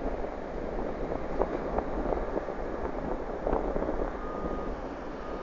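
Wind buffeting the microphone, an uneven crackling rush over a steady low rumble.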